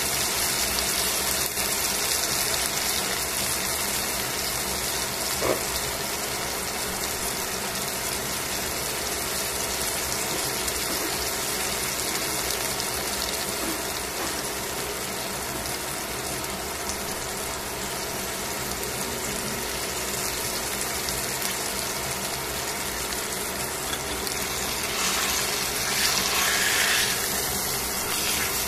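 Chicken thigh sizzling steadily in oil in a stainless steel frying pan. Near the end the sizzle grows louder for a couple of seconds as the pieces are turned with tongs.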